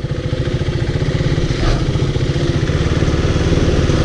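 KTM Duke 390's single-cylinder engine running steadily, growing a little louder over the first second.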